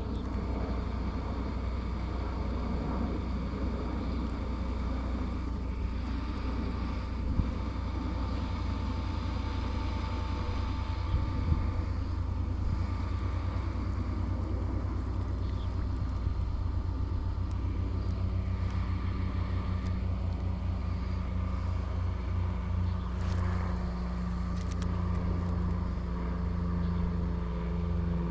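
A steady motor drone with a strong low hum, holding one pitch throughout, with two brief knocks in the first half.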